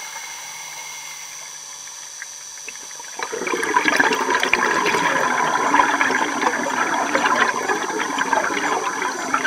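Air bubbles gurgling underwater. After a quieter hissing stretch, a dense bubbling rush starts about a third of the way in and keeps going.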